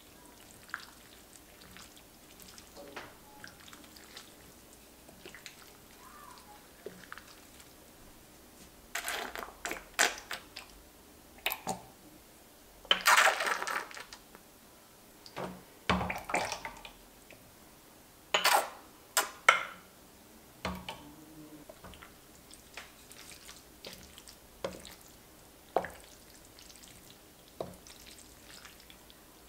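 Wooden spatula stirring thick, creamy baked shell-pasta mac and cheese in a ceramic baking dish: wet squelching and scraping against the dish, with scattered light clicks. It comes in irregular bursts and is busiest in the middle.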